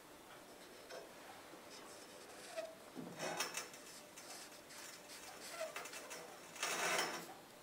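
Marker pen scratching around the edge of a paper template wrapped on a steel tube, with light paper rustling, in faint short strokes; the two loudest come about three and seven seconds in.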